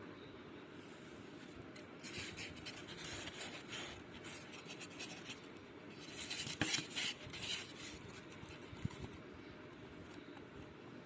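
Light scraping and clattering of small hard objects being handled, in two bursts of a few seconds each, the second louder.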